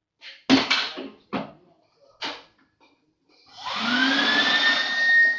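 Several short knocks in the first couple of seconds, then about three and a half seconds in a wet-and-dry drum vacuum cleaner's motor switches on, its whine rising in pitch as it spins up and then running steadily.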